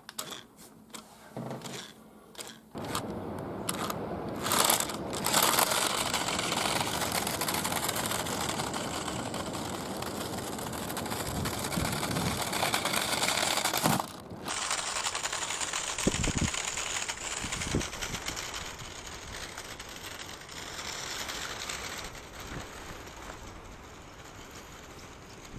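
Small 1:24-scale Maisto Hummer HX Concept RC car driving on the ground, its small electric motor and wheels running continuously after a few clicks from handling the controls at the start. The sound breaks off briefly about halfway through and then carries on.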